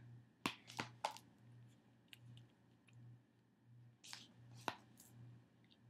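A click-pen eye brightener being clicked to push product up to its brush tip: a few sharp small clicks about half a second to a second in, and again around four seconds in. Under them runs a faint low hum that pulses a little more than once a second.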